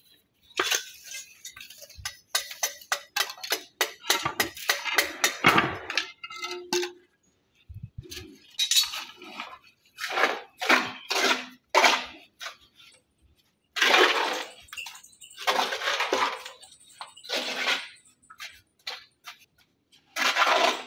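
A steel trowel clinking and scraping against flat stone and wet sand-cement mortar as a stone floor is laid: a quick run of short clinks and scrapes in the first few seconds, then slower, longer scrapes and rubs as a flat stone is slid into the mortar bed and pressed down.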